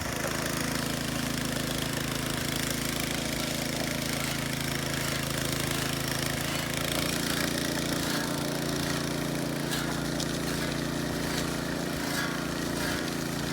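Small petrol engine of a concrete power trowel, running steadily as it works the slab, the drone growing a little fuller about halfway through.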